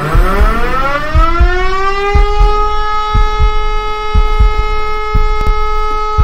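Fire station's alarm siren winding up, its pitch rising for about two seconds and then holding a steady wail, over a run of regular low thumps.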